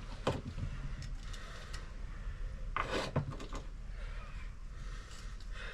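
Bushings being slid off a KYB open chamber fork's inner tube: a few scattered knocks and metal clicks, the loudest a short scrape about three seconds in.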